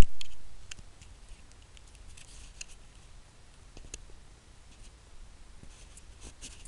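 Handling noise from the camera being moved and set in place: a loud bump at the start that fades over about half a second, then scattered small clicks and brief rustles.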